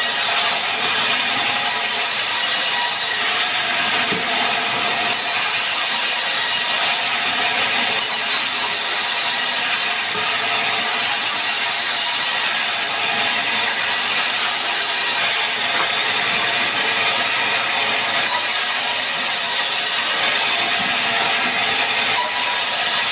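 Band sawmill blade cutting sengon wood into boards: a steady, unbroken hissing whir of the saw in the log.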